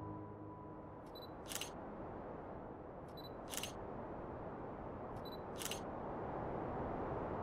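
Camera shutter firing three times, about two seconds apart, each click coming just after a short high tone. A steady hiss grows gradually louder underneath.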